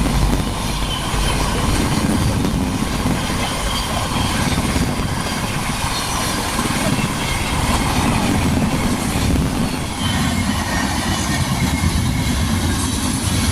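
A train running past: the steady, loud rumble and rattle of its wheels on the rails.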